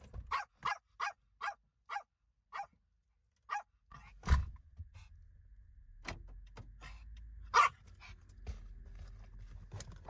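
Small long-haired dog barking inside a van cabin: about seven short, sharp barks in quick succession over the first four seconds, and one more loud bark near the end. A loud thump comes about four seconds in, followed by a low rumble.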